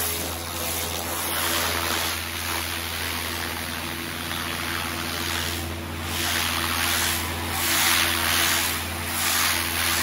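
Pressure washer jet spraying onto roller-shutter slats and wet concrete, a steady hiss that swells and fades several times over a steady low hum.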